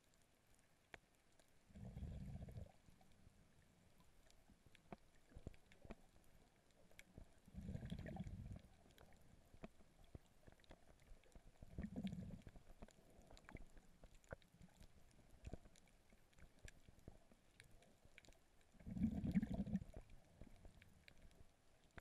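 Muffled underwater sound through a GoPro's waterproof housing: mostly near silence, broken by four brief low rumbles several seconds apart, the last the loudest, and faint scattered clicks.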